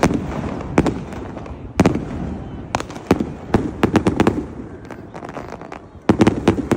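Aerial fireworks bursting overhead: a run of sharp bangs and crackles, ending with a quick cluster of rapid bangs near the end.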